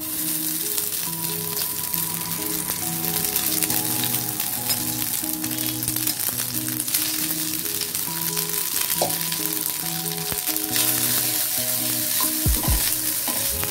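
Boiled fusilli pasta sizzling as it fries in ghee in a nonstick pan, a steady crackling hiss. Near the end a wooden spatula stirs it, with a few low knocks against the pan. Soft background music plays underneath.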